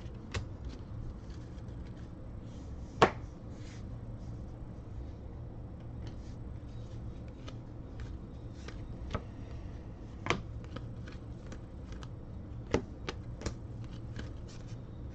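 Panini Elite Extra Edition baseball cards being flipped through and moved from stack to stack by hand, with scattered sharp card clicks and snaps, the loudest about three seconds in, over a steady low hum.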